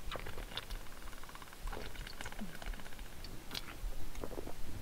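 Close-up sounds of someone eating and drinking: scattered small clicks and chewing noises.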